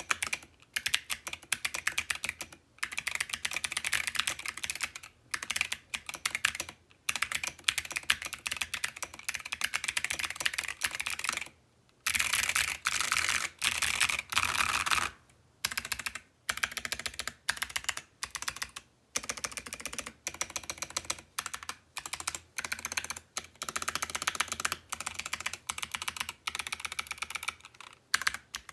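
Fast typing on a mechanical keyboard with stock Zeal Clickiez switches, an FR4 plate and a clear acrylic case: dense runs of sharp key clicks broken by brief pauses.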